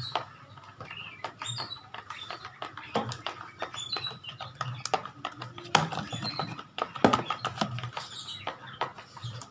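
Slime mixture being stirred and squished, with a stream of irregular sticky clicks and crackles.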